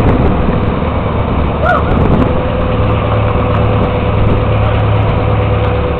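A heavy engine running steadily with a low drone and an even hum. A brief pitched sound that rises and falls comes about two seconds in.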